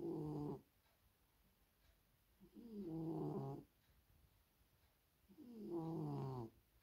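Maine coon cat snoring loudly in deep sleep: three pitched snores about three seconds apart, each lasting about a second.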